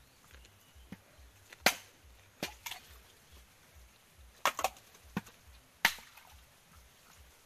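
Machete blade striking husked coconuts to split them in half for copra: about seven sharp chops at irregular spacing, some coming in quick pairs.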